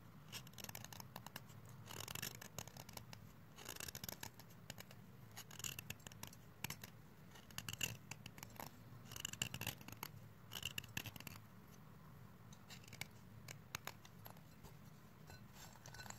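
A serrated steel blade scraping and shaving a stick of chalk, in repeated short bursts of gritty scratching strokes that grow sparser in the last few seconds.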